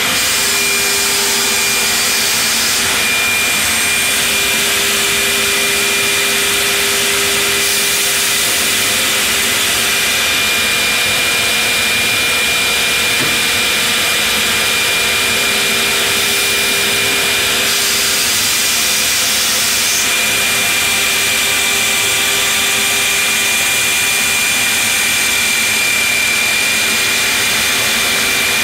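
CNC stair routing machine's router spindle cutting a stair profile into a wooden board: a loud, steady whine over a rush of cutting noise, with the hiss of the cut shifting a few times as the head moves.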